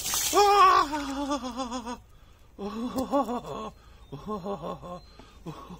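Water splashes down over a man at the start, and he lets out a long wavering cry, then several short shaky vocal bursts like breathless laughter.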